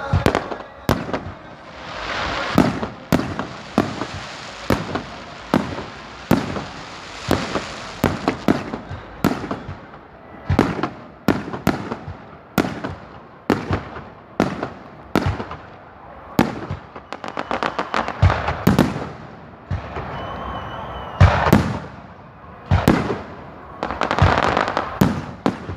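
Fireworks display: aerial shells bursting in a rapid irregular run of sharp bangs, about two a second, over a continuous rushing noise.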